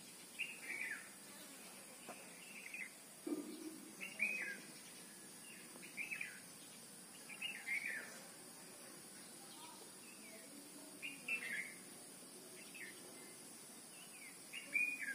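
A bird calling in quick groups of short chirps that fall in pitch, repeated every second or two, over a faint steady high-pitched background hum.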